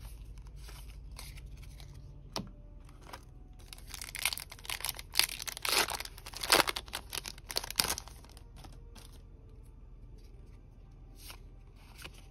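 A foil Yu-Gi-Oh booster pack wrapper being torn open and crinkled: a run of loud crackling that starts about four seconds in and stops near eight seconds. Before it come light clicks of trading cards being handled.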